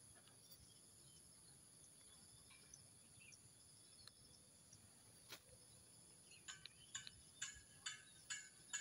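Near silence with a faint steady high-pitched hum. From about six seconds in, a regular run of short pitched pulses begins at about two a second and grows louder.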